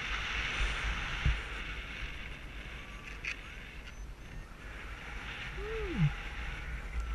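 Rushing air on the camera microphone of a tandem paraglider in flight just after takeoff, a steady hiss over a low rumble. About six seconds in, a short tone slides down in pitch.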